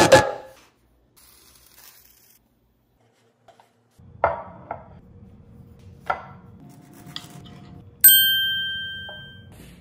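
A bright bell-like ding about eight seconds in, several clear tones ringing together and fading over about a second and a half; it is the loudest sound here. Before it, background music cuts off right at the start, and a few light knocks of a ceramic plate on a wooden cutting board come about halfway through.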